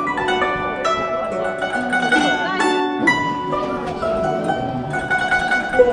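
Background music: a melody of plucked string notes.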